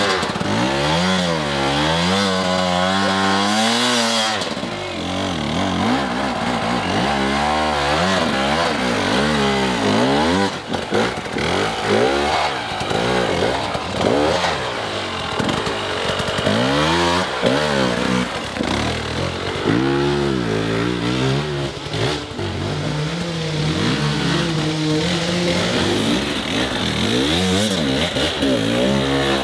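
Husqvarna two-stroke enduro motorcycle engine revving hard and unevenly, its pitch rising and falling again and again as the throttle is worked on a steep climb.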